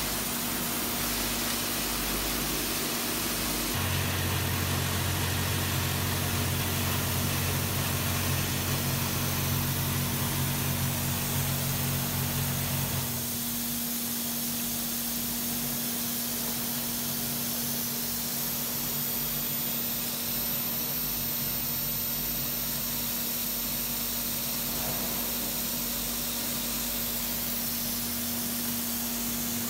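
Nail collating machine running, which joins nails into a wire-held strip: a steady machine hum with a constant tone over an even hiss. A deeper hum joins in about four seconds in and drops away about nine seconds later.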